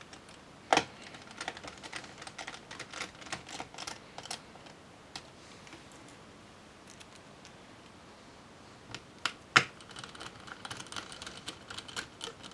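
Small Phillips screwdriver driving the two battery retaining screws back into a laptop's chassis. A sharp click as the bit seats, then a run of small quick ticks as it turns; after a quiet pause, another sharp click and more ticking as the second screw goes in.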